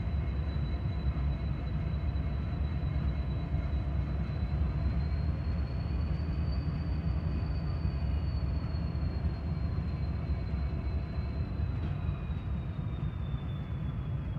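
Steady low rumble of diesel locomotives in a rail yard, with a thin high whine that rises slightly about halfway through and then slowly falls.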